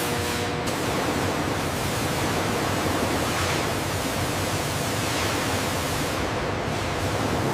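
Steady rushing hiss of leather-processing machinery. A low hum under it cuts off less than a second in.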